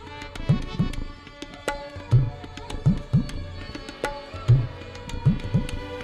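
Instrumental interlude of a ghazal: tabla playing a steady repeating cycle, its bass-drum strokes gliding upward in pitch, under a bowed sarangi melody.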